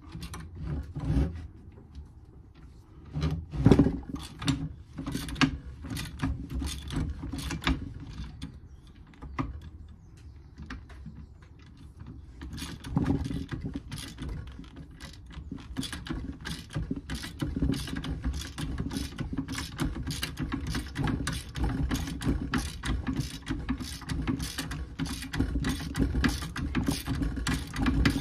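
Hand tool working on metal: a long run of sharp mechanical clicks, irregular at first, then steady at about two to three a second.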